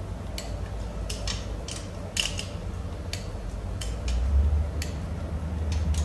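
Irregular sharp metallic clicks and taps of hand tools on engine parts during an engine overhaul, about a dozen unevenly spaced, over a low steady hum that gets louder about four seconds in.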